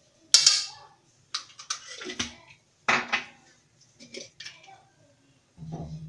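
Metal spoon clanking and clinking against a stainless steel cooking pot: a string of separate knocks, the loudest about half a second in.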